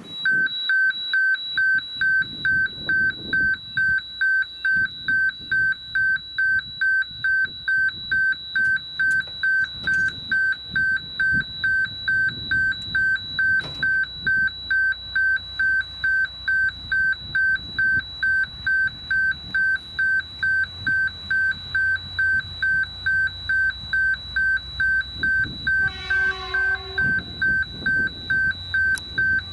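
Level crossing warning bell sounding a loud, rapid, evenly pulsing electronic beep, switched on as the train approaches. About 26 s in, the approaching diesel locomotive gives a short horn blast, over a low engine rumble that grows as the train nears.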